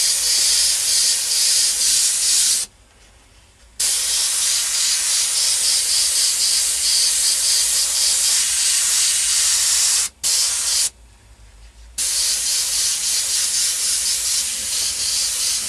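Airbrush spraying paint: a steady hiss of compressed air and paint from the nozzle, cut off by the trigger for about a second around three seconds in, again briefly around ten seconds in and for about a second just after, then starting again.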